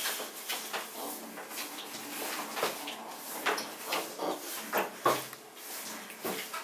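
Hands rolling and pressing bread dough on a cloth-covered table and setting pieces on metal baking trays: irregular soft knocks, taps and rubbing, several a second.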